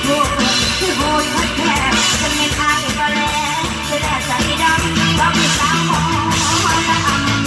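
Live Isan toei music, with a singer's ornamented, wavering vocal line over an amplified band with a steady drum beat and bass notes.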